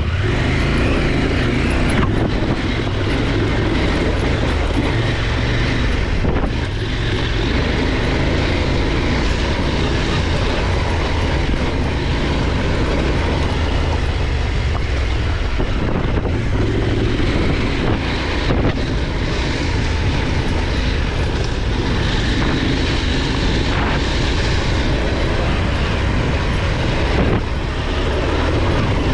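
Motorcycle engine running steadily while riding off-road, with a few brief dips in the sound.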